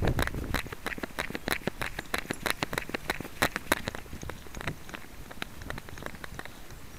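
Quick, irregular taps and clicks of a cairn terrier on the move, picked up by a keyfob camera strapped to its back, with a low rumble of camera jostling at the start. The taps come thick for about four seconds and then thin out.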